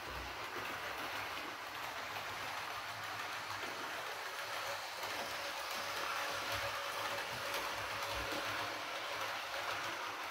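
Model Class 312 four-car electric multiple unit running on its track under DCC control: a steady rolling hiss of wheels on rail with a faint motor hum, a little louder in the middle as the train passes close.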